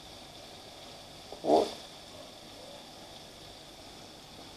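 Faint, steady sizzle of small smelt deep-frying in hot oil, with one short vocal sound about a second and a half in.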